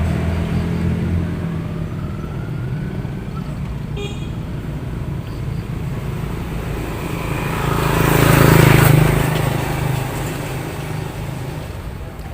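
A motor vehicle engine running steadily, growing louder to a peak about eight to nine seconds in and then fading, like a vehicle passing close by.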